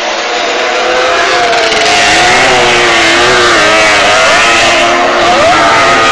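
Several two-stroke speedway sidecar engines, a Suzuki GT750 triple among them, racing together, their revs rising and falling as they lap the track, with one short rising rev about five seconds in.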